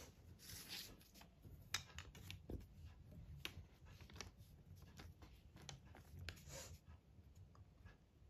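Faint pen-on-paper sounds: scattered light ticks and scratches of writing strokes, with a few brief scratchy swishes of the ruler or paper sliding over the page, one about half a second in and another near the end.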